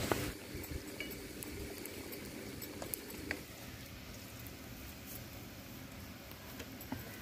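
Faint grinding of a stone wet grinder (aattukal) as its stone pestle is turned through masala, with a few light clinks, after a sharp knock right at the start.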